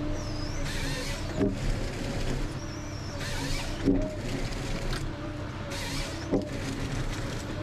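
Ponsse Scorpion King forest harvester working: a steady engine hum with repeated bursts of hydraulic hiss and a few sharp knocks as the H7 head feeds and cross-cuts a pine stem.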